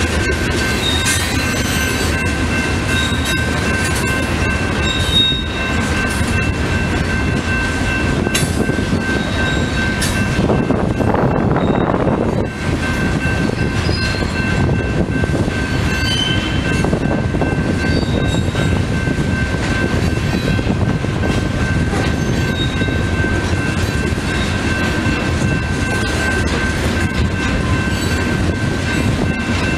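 Loaded freight hopper cars rolling past on steel wheels, a steady rumble on the rails. A thin high squeal from the wheels holds throughout, with a few short higher squeaks and a brief louder swell about eleven seconds in.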